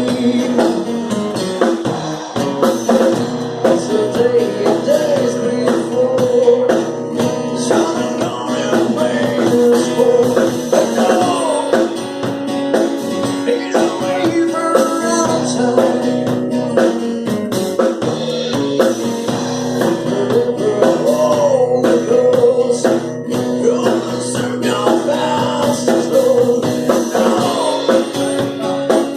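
A band playing music with a singing voice over guitar and percussion.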